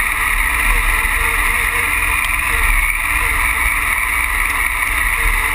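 Triumph Tiger Explorer's three-cylinder engine running steadily as the motorcycle rides a gravel track, mixed with tyre and road noise.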